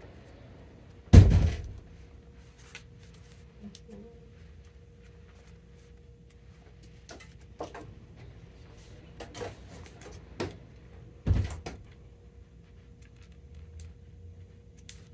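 Two loud thumps, one about a second in and one about ten seconds later, among scattered light clicks and taps from handling the plastic grommet strip, awl and racket frame.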